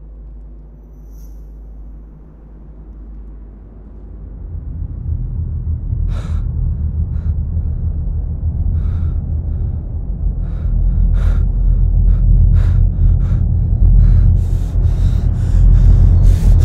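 A low rumbling drone swells steadily louder. Over it come short, sharp gasps, sparse at first and then quicker and quicker toward the end, like panicked breathing building up.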